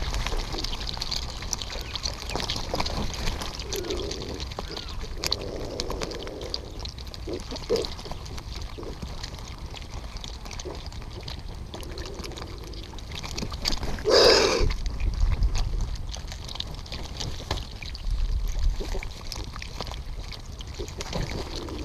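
A flock of black vultures crowding and feeding close around the camera: many short clicks and scrapes of beaks and feet on shells and mud, with wing flaps and a few short low sounds, the loudest about fourteen seconds in. A steady low rumble runs underneath.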